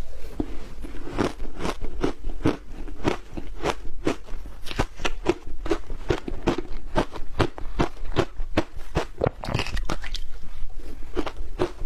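Close-up crunching and chewing of shaved ice: a steady run of crisp bites, about two or three a second.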